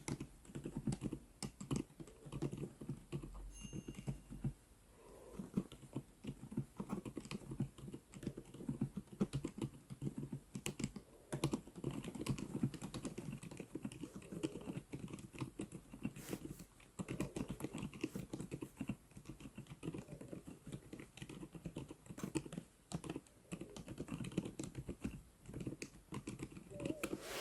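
Typing on an FL-Esports CMK75 mechanical keyboard fitted with Outemu Lime silent tactile switches: a fast, continuous run of keystrokes.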